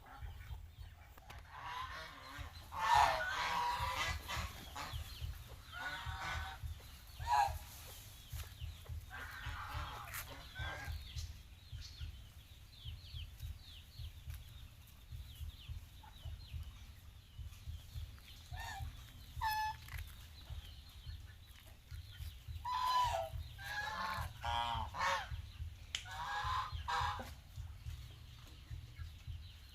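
Domestic geese honking in scattered bursts, with a quieter stretch in the middle and a busy run of calls near the end. A low steady rumble runs underneath.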